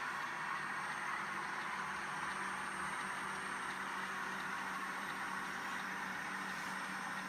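Steady, unchanging hiss with a faint low hum underneath: constant room background noise.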